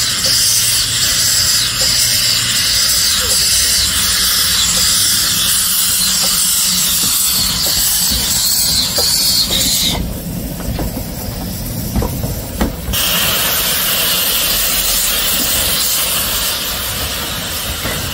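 Steam locomotive letting off steam: a loud, steady hiss that cuts off about ten seconds in and starts again about three seconds later, over a low rumble.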